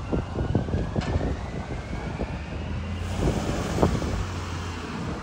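Garbage truck engine running with a steady low rumble, a faint whine slowly rising in pitch, and a few light knocks.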